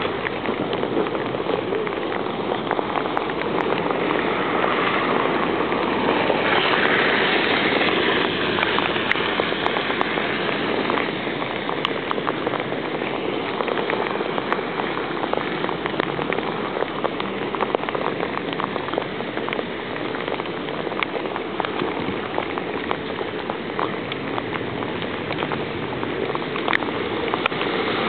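Steady rain falling on a wet paved road: a dense hiss with scattered sharp ticks of drops. It swells briefly about seven seconds in.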